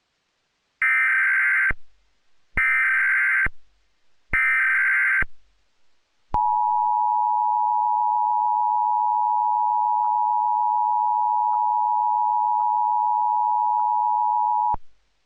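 Emergency Alert System SAME header: three short bursts of screeching data tones, each about a second long. They are followed by the EAS two-tone attention signal, held steady for about eight and a half seconds before it cuts off. Together they announce the start of an emergency alert broadcast, here a national EAS test.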